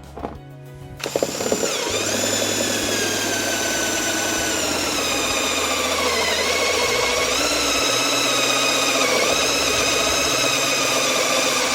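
Cordless drill starting about a second in and running steadily with a step drill bit cutting a 30 mm hole through plastic trim; its motor whine sags in pitch under load and picks up again, over a gritty cutting noise.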